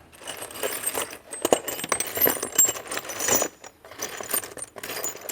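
Loose steel nuts and bolts clinking and rattling as a hand rummages through a bolt bin, with many irregular metallic jingles.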